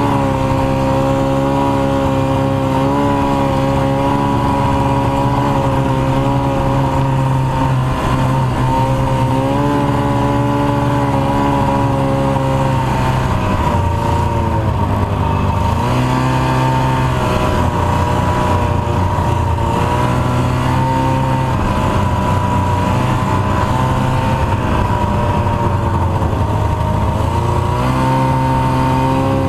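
1989 Ski-Doo Formula Plus snowmobile's two-stroke engine running under way on a trail, its note dropping and picking back up with the throttle around the middle and again near the end.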